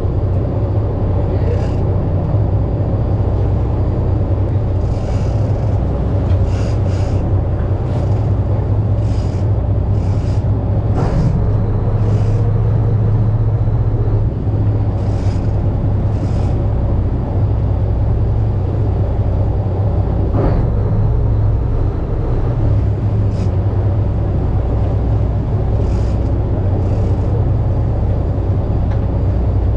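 Fishing boat's engine running steadily, a loud low drone, with scattered short clicks and knocks over it.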